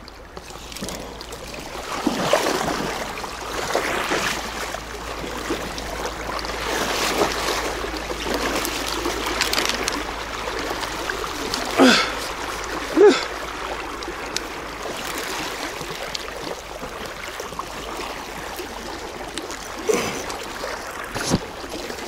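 Fast-flowing river water rushing and splashing steadily, with a few brief louder sounds about halfway through and again near the end.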